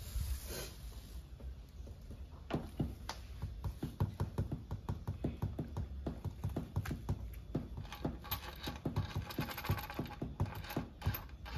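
Quick, irregular light clicks and taps, a few a second, of small hard parts being handled, starting a couple of seconds in and getting busier about halfway.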